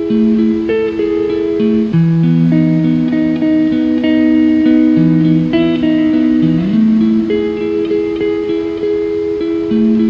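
Calm instrumental background music: held guitar chords that change every couple of seconds, with one short upward slide in pitch near the end.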